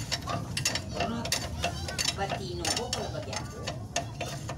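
Hand ratchet wrench clicking in quick, irregular strokes as a bolt on the front suspension's steering knuckle and lower ball joint is turned.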